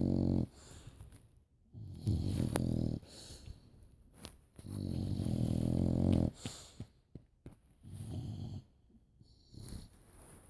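Two sleepers snoring in tandem: long pitched snores, loud at the start, about two seconds in and about five seconds in, the last the longest, then a softer snore about eight seconds in.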